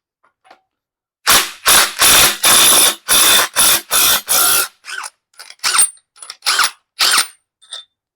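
Impact wrench hammering on the LS engine's crankshaft balancer bolt in a series of loud bursts, trying to break it loose. The first bursts are long and close together; near the end come shorter, weaker bursts.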